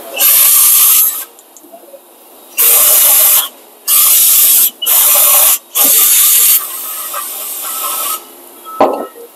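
Aerosol can of brake cleaner spraying in five short loud bursts, each under a second long, then a quieter spray lasting about a second and a half. A single sharp knock near the end.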